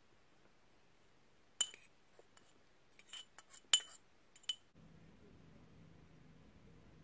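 Metal fork clinking against a small glass bowl as wild blueberries are pushed out of it: a sharp clink about a second and a half in, then a quick run of clinks around the middle, the loudest among them, and one last clink shortly after.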